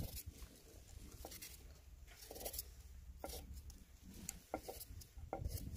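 A small knife peeling a raw potato by hand: faint, short scraping strokes of the blade through the skin at irregular intervals.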